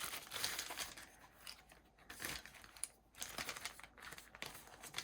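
Plastic packaging crinkling as it is handled, in irregular bursts with short pauses.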